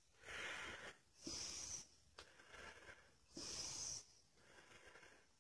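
Slow, even breathing through a face mask, close to the microphone: in and out about once every two seconds. A small click comes about two seconds in.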